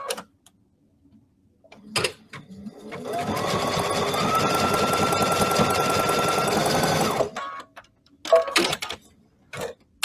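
Computerized sewing machine stitching a zigzag seam to finish a raw edge, running steadily for about four seconds from about three seconds in, with a thin motor whine that steps up slightly in pitch, then stopping abruptly. A click comes shortly before it starts and a few short sharp sounds follow near the end.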